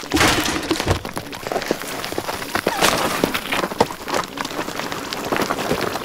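Cartoon sound effects: a dense crackling, rattling clatter of many small knocks and scrapes, as a coconut bundled with junk is handled and pushed.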